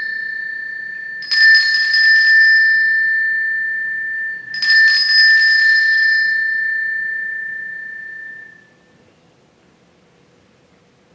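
Altar bells rung three times at the elevation of the chalice after its consecration. One ring is already sounding, and two more come about a second and four and a half seconds in. Each is a clear, high ringing tone that fades slowly, and the last dies away about eight seconds in.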